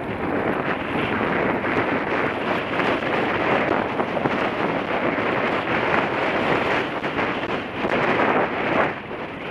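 Wind rushing over a helmet-mounted camera's microphone on a moving Suzuki DR 350 single-cylinder dirt bike, with the bike's running mixed in beneath. The sound dips briefly near the end.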